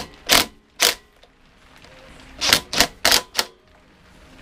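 Cordless DeWalt driver run in short trigger bursts, tightening the screws of a lawnmower's air filter housing: two brief bursts, then four more in quick succession about two and a half seconds in.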